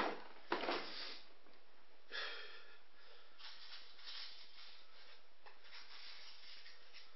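Noisy sniffs and a snort from a person with a flu-blocked nose, followed by a soft rustle of the figure being handled. A sharp click comes right at the start.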